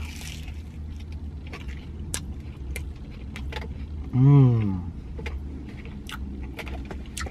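Chewing a mouthful of chicken quesadilla, with small wet clicks and smacks of the mouth, and about four seconds in a closed-mouth "mmm" of enjoyment that falls in pitch, the loudest sound. Under it a steady low rumble inside the truck's cab.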